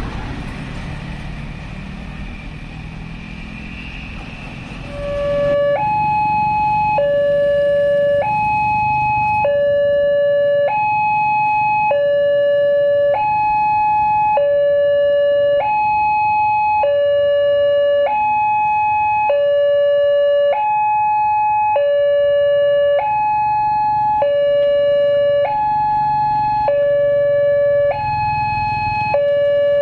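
Railway level crossing warning alarm starting about five seconds in: two electronic tones, one low and one high, alternating about every 1.3 seconds. It is the signal that a train is approaching and the crossing barriers are closing. Before it there is the rumble of road traffic.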